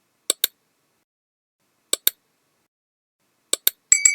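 Sound effect for a subscribe button: mouse clicks in three quick pairs, about a second and a half apart. Near the end, two more clicks bring a bright notification-bell ding that rings out and fades.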